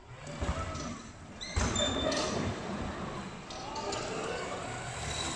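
Powerchair football struck by a powerchair's footguard: two hard thumps about half a second and a second and a half in, the second louder, echoing in the sports hall. A steady background noise carries on after them.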